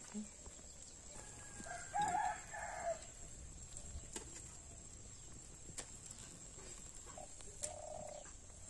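A rooster crowing once, about two seconds in, with a shorter chicken call near the end. A few faint clicks in between.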